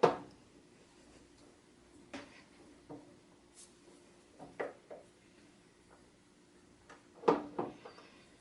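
Scattered metal knocks and clicks of tooling being handled and set up on a lathe, about seven separate sounds with quiet gaps between them, over a faint steady hum.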